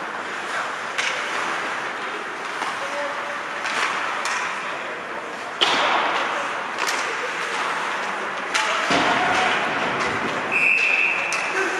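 Ice hockey play in an arena: skates scraping across the ice, with several sharp cracks of stick, puck and boards, the loudest about halfway through. Shouts of players and onlookers, and a short high steady tone near the end.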